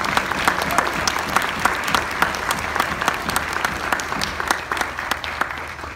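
Congregation applauding: many hands clapping together, dying away near the end.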